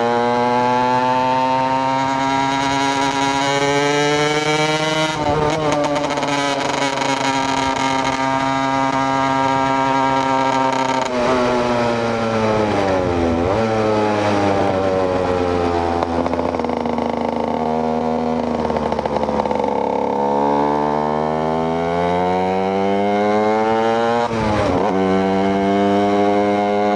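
KTM EXC 125 two-stroke single-cylinder engine under way, revs rising and falling as it is ridden. The engine note falls away about halfway through, stays low for a few seconds, then climbs again, with a brief dip near the end.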